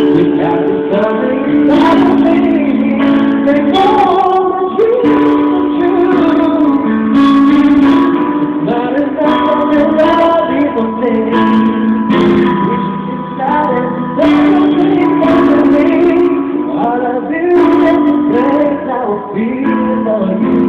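A man singing a slow love song live into a microphone over instrumental backing. He holds long notes and lets the melody bend.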